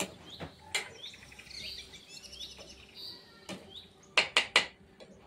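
Small birds chirping, with a metal spoon knocking against a metal kadhai as a gravy is stirred; three sharp clinks in quick succession about four seconds in are the loudest.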